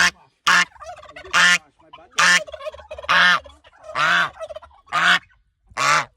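Goose honking: eight short, harsh, loud calls about once a second, with fainter bird calls between them.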